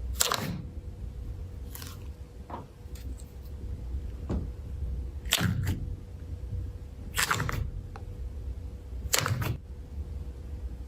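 Slime being pressed and worked by hand, giving short crackling pops and squishes about every one to two seconds.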